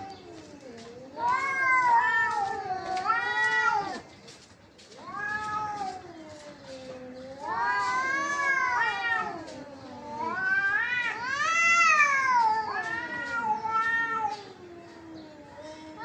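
Two domestic cats yowling at each other in a territorial standoff: a series of long, drawn-out caterwauls that waver up and down in pitch, with short gaps between them.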